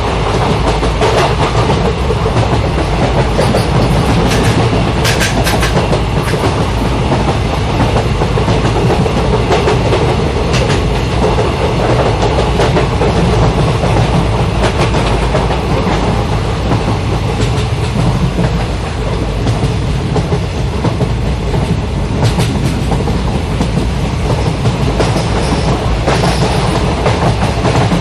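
Goods train wagons rolling on the rails: a steady, loud rumble with the clickety-clack of wheels over rail joints and scattered sharp clicks.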